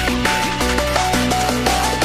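Electronic drum-and-bass style music: a fast beat with a synth melody stepping up and down between a few notes over a held bass.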